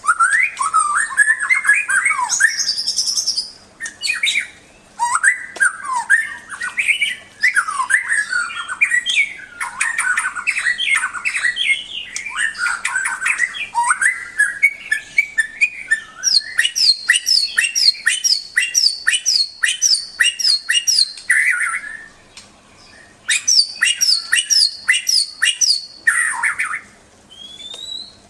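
White-rumped shama (murai batu) singing a loud, varied song of whistled phrases. It includes runs of quick repeated sharp notes, about three a second, broken by short pauses.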